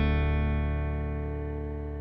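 Background music ending: a final guitar chord ringing on and slowly fading.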